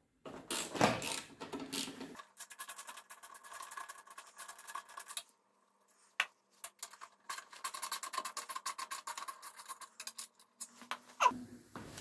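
Ratchet wrench clicking rapidly while undoing the fuel-tank mounting bolts, in two runs of about three seconds each with a short pause between, after a moment of handling noise at the start.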